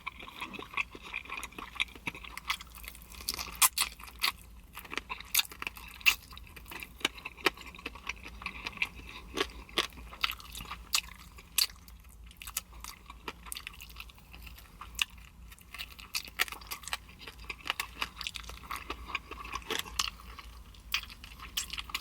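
Close-miked chewing of crispy honey garlic chicken wings, with many sharp, irregular crunches.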